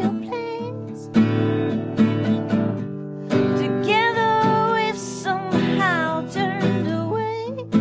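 A woman singing an original acoustic song while strumming an acoustic guitar, her sung notes gliding and held over the strums.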